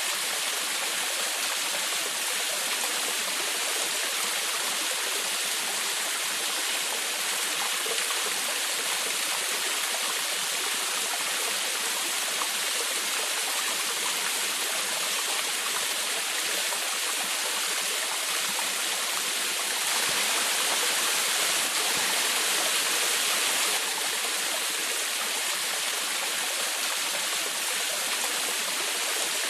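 Waterfall splashing water in a steady, even rush, briefly a little louder about two-thirds of the way through.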